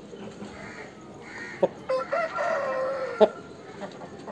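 An Aseel rooster crowing once, a single call of about a second and a half, midway through. Two sharp clicks come just before it starts and as it ends.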